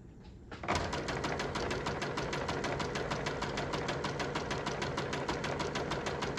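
Domestic sewing machine starting about half a second in and stitching at a steady, not super fast speed, the motor running under an even rapid clicking of the needle.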